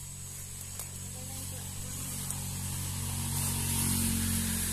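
Leaves, ferns and grass rustling as someone pushes through dense undergrowth, growing louder toward the end, over a steady background drone.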